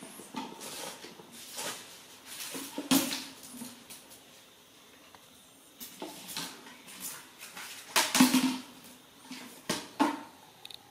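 Red plastic mesh basket knocking and scraping on a tiled floor as a young monkey pushes and lifts it. The clatters come irregularly and are loudest about three seconds in and around eight seconds in.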